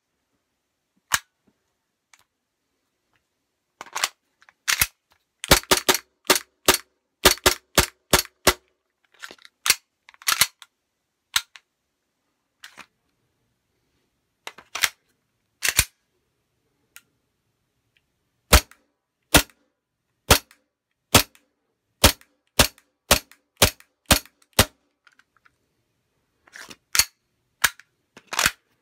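WE Tech G19 gas blowback airsoft pistol firing, each shot a sharp crack as the gas cycles the slide. The shots come singly at first, then in quick strings of several, with an even run of about one shot a second in the second half.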